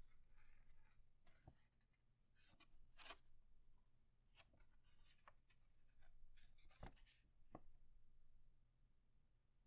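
Faint rustling of a sheet of paper being folded and handled by hand, with several short, crisp crackles as the paper is creased and turned.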